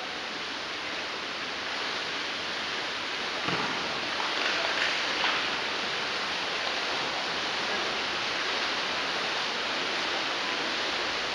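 Steady wash of splashing water echoing in an indoor pool hall as water polo players swim up the pool.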